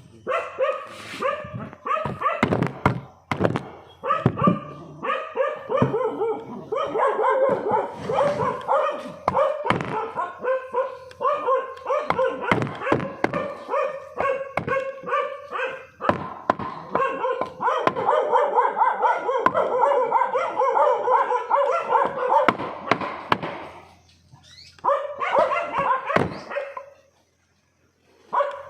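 Dog barking and yelping almost without a break, pausing briefly near the end, with many sharp knocks among the barks.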